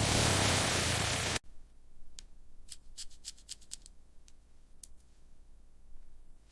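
A loud steady rushing hiss with a low rumble that cuts off suddenly, followed by a quick run of a dozen or so small, sharp, high clicks.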